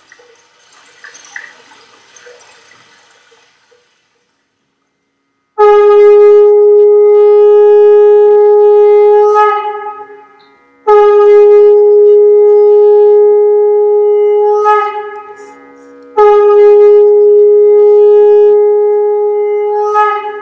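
Conch shell (shankha) blown three times, each a long, steady, loud note of about four to five seconds that bends down in pitch as it dies away. It heralds the start of the invocation. The blasts come after a few seconds of faint hiss and a brief silence.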